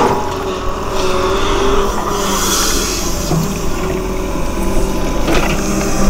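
Sumitomo hydraulic excavator's diesel engine running under working load, with a wavering hydraulic whine, while the boom and bucket are lowered into wet mud. A sharp clunk comes near the start and another about five seconds in.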